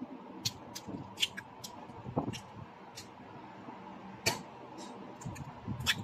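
Eggs being cracked over a bowl: a scattered string of sharp shell taps and cracking clicks, the loudest a little over four seconds in and again near the end.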